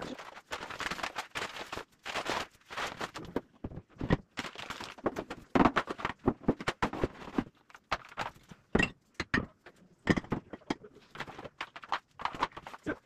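Household items being handled and set down on cupboard shelves: irregular knocks, clatter and rustling as tins, baking moulds and packages are put in place.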